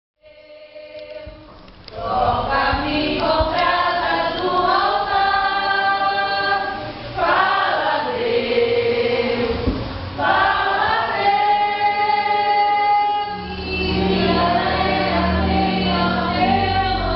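A group of voices singing a gospel hymn in long held notes. A low accompaniment joins in about thirteen seconds in.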